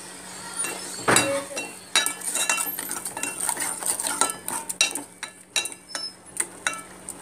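Stainless-steel kitchenware clinking: a spoon knocks and scrapes against a steel pot while steel plates and a lid are handled. The clinks come several times a second, each with a short metallic ring, starting about a second in.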